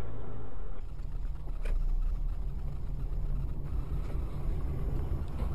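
Steady road and engine rumble of a moving car, heard from inside the cabin through a dashcam microphone. A short click comes about a second and a half in.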